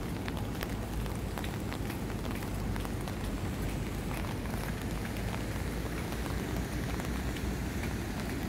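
Steady rushing noise of a flooded river running high and fast, with scattered light ticks.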